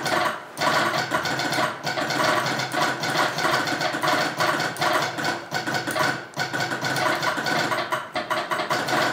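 Old electromechanical telegraph apparatus clattering out a fast, irregular run of metallic clicks, near-continuous with a few short breaks, like a sounder or relay chattering out Morse.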